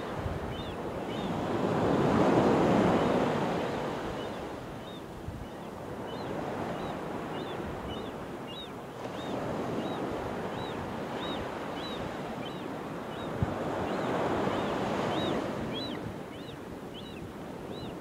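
Ocean surf washing up the beach, swelling and fading every several seconds, loudest about two seconds in. Over it, a bird's short high peeping calls repeat about once or twice a second.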